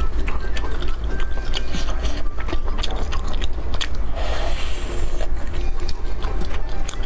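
Close-miked biting and chewing of grilled meat pulled off bamboo skewers, a dense irregular run of small sharp clicks and crackles.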